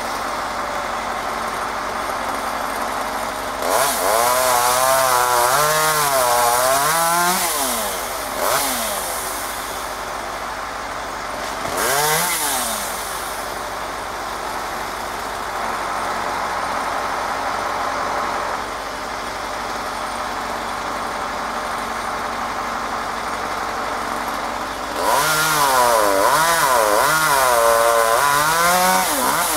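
Chainsaw idling, then revving up into two long cuts through poplar limbs, about four seconds in and again near the end. Its pitch rises and falls as the chain bogs under load. There are short throttle blips between the cuts.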